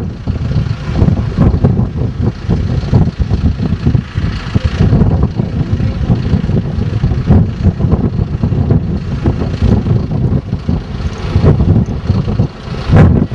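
Tractor engine running steadily, with wind buffeting the microphone in gusty low rumbles.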